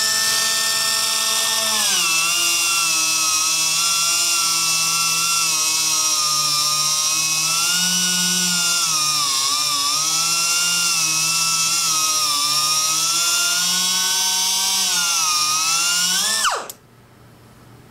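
Dynabrade 3-inch right-angle air disc sander running: a high whine over the hiss of its air exhaust. The pitch starts at free speed and drops about two seconds in as the disc is pressed onto the surface to strip the coating, then wavers with the pressure under load. Near the end the whine falls away sharply as the tool shuts off.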